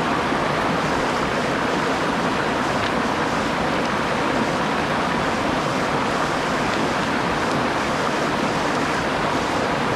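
Rainforest stream rushing over a small rocky cascade, a steady, unbroken rush of water.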